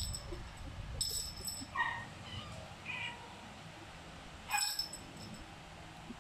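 A jingling cat toy shaken twice above kittens, with a few short high kitten mews in between.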